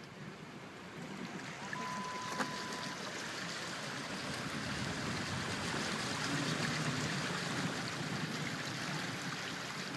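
Steady rushing noise of a vehicle driving on a rain-soaked road, heard from inside, growing somewhat louder midway. A short single-pitch beep sounds about two seconds in.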